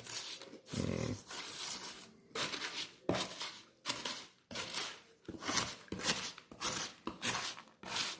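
A spoon stirring puffed rice bubbles coated in melted copha and cocoa in a mixing bowl: a crisp, crackly rustle in repeated strokes, roughly one every 0.7 seconds, from stirring to get the mixture fully combined.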